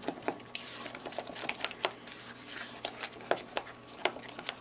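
A spoon beating thick chocolate-and-egg brownie batter by hand in a stainless steel bowl: irregular clicks and scrapes of the spoon against the metal, several a second.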